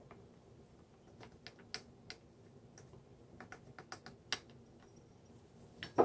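Dried oregano shaken from a plastic spice jar into a plastic measuring spoon: faint, scattered light ticks and taps, with a sharper clink near the end as the spoon goes into a glass jar.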